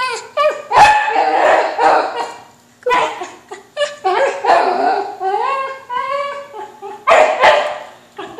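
A whippet mix dog barking up at a balloon it wants, in repeated loud bursts, with some drawn-out calls that rise in pitch partway through.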